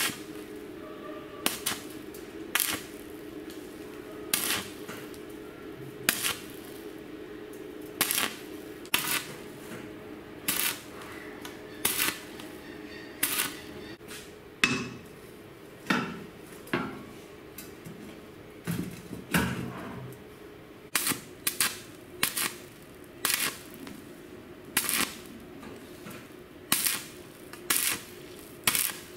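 Stick (arc) welding on a steel frame: short sharp cracks of the arc striking, roughly one every second or two, over a steady low hum.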